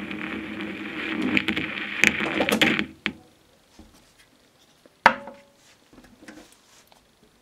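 Small electric motor of a homemade disc-cutting turntable running with a steady hum and scratchy hiss, cut off abruptly about three seconds in. Then a few faint clicks and one sharp knock about five seconds in.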